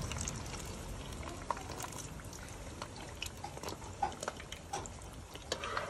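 Pişme dough pieces deep-frying in hot oil, a steady sizzle, with a few light clicks of a wire strainer against the pan as cooked pieces are lifted out.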